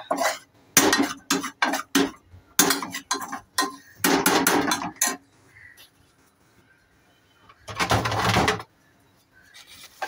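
Metal spoon scraping and knocking against a metal pot while stirring dry flour and sattu being roasted on the stove, with a run of quick scrapes and clicks. After a quiet pause there is one louder burst, about a second long, near the end.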